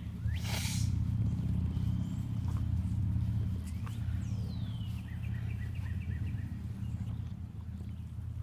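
A French bulldog chewing and snuffling at grass, with a short rustle about half a second in. Birds call at the same time: a falling whistle about four seconds in, followed by a quick run of chirps.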